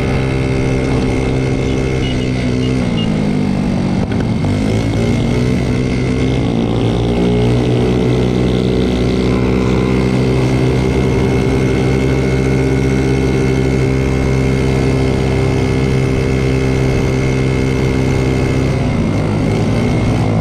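Small moped engine running under way, its pitch dipping about two to four seconds in, then climbing again and holding steady at cruising speed before easing off near the end, with wind rumble on the microphone.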